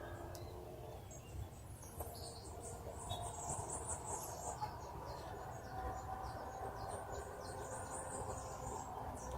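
Forest ambience of birds and insects: many short, high chirps and trills over steady lower insect or bird tones, with a faint low rumble underneath.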